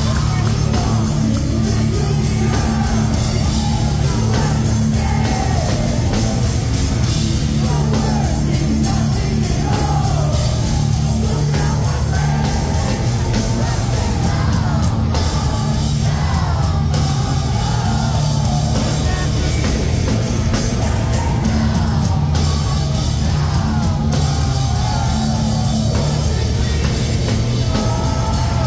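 Live rock band playing loud: distorted electric guitars, bass and drums, with a lead vocalist singing over them, heard from within the crowd.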